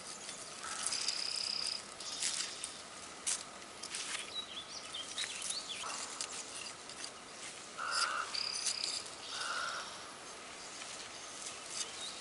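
Pocket knife scraping down a bull thistle stalk to strip off its spiny leaves, with gloved hands rustling through the plant in short, irregular strokes. Behind it come high, thin held calls of about a second each, three times, and a few short lower calls.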